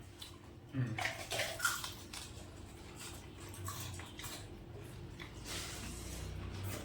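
Leftover pakhala (cooked rice soaked in water) being mixed and eaten by hand: wet squishing and small splashes, several short ones a little after the first second and a few more later on.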